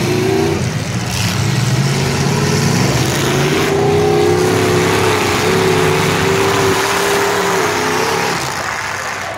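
Demolition derby car engines running loud, one revving up about a third of the way in, holding high, and easing off near the end.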